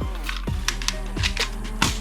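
Electronic background music with a steady beat: a held bass note under a kick drum about every half second, with sharp clicks scattered over it.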